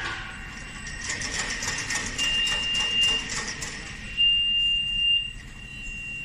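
Double-head tank edge flaring machine running: a steady high whine that swells louder twice, for about a second each time, over a hiss with light clicking.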